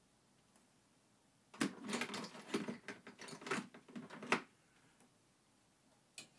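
Plastic clicking and rattling from a car's cowl air-intake grille being handled and worked loose. A busy flurry of sharp clicks runs for about three seconds, starting a moment in. A couple of separate sharp clicks follow near the end.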